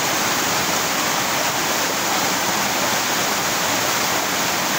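Small spring-fed waterfall cascading over rocks into a stream: a steady, even rush of water.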